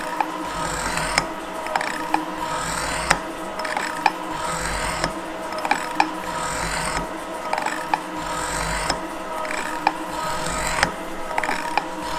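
Gould & Eberhardt metal shaper running under power feed, its roughing tool surfacing a torch-cut A36 steel plate. The ram's cutting and return strokes repeat in a steady rhythm, with a sharp click roughly once a second over a low, steady hum.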